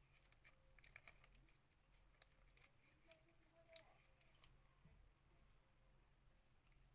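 Near silence, with faint scattered clicks and rustles in the first four and a half seconds, as of a fresh sheet of paper being handled and folded.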